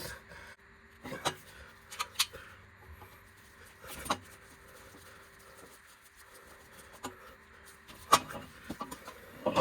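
Scattered sharp clicks and knocks from hand tools working the screws of a wheel hub's dust shield, with quiet between them: a few single clicks early on and a quick cluster near the end.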